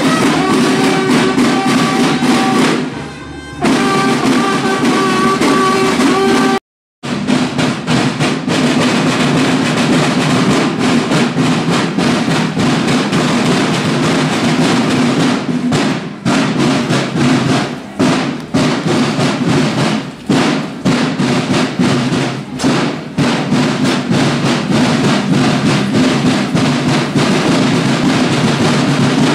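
Marching drum-and-bugle corps: a bugle holds long, steady notes over field drums for the first few seconds. The sound cuts out briefly about seven seconds in, then the field drums play a rapid, dense cadence.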